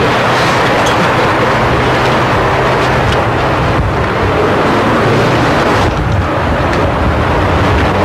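A motor vehicle running: a steady low hum under a loud, even rushing noise, with a few faint clicks.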